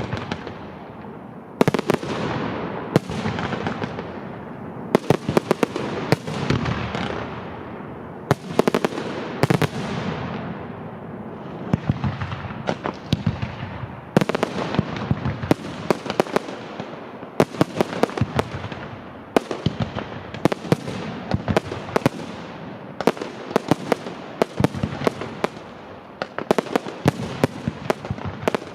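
Fireworks display: a dense, irregular run of sharp bangs from bursting shells, often several in quick succession, each trailing off into a fading rumble, with crackling between.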